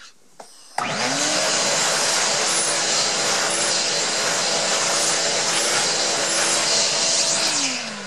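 Vacuum cleaner switched on just under a second in, its motor quickly spinning up to a loud, steady whine and suction noise as the nozzle sucks lint off a fleece blanket. It is switched off near the end, the motor winding down in falling pitch.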